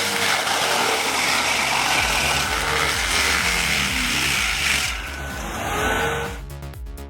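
Loud, steady machine noise, a dense rushing roar, over electronic background music with a steady beat. The machine noise drops away about six seconds in, leaving the music.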